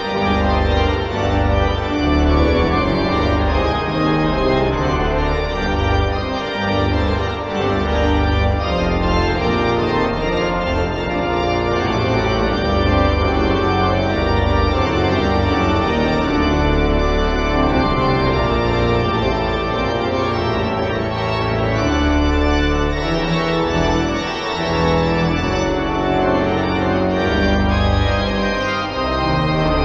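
Pipe organ playing a piece in full chords, with sustained notes moving continuously over a deep bass line.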